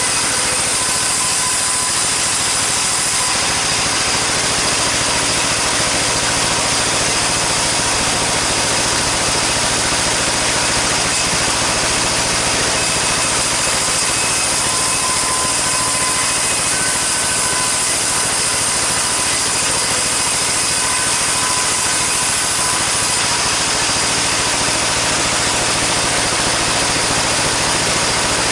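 Sawmill saw running steadily and cutting sengon timber, a continuous loud machine noise with a low hum and faint high whines that do not change.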